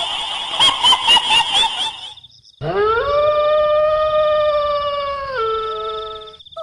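A long, drawn-out howl that rises at the start, holds steady, then drops to a lower pitch before it stops. Before it, a noisy stretch of rapid high squeaks and clicks cuts off suddenly.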